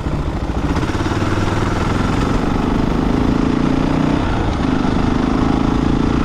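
Honda XR600R's single-cylinder four-stroke engine running under way. Its revs pick up about two seconds in and then hold steady.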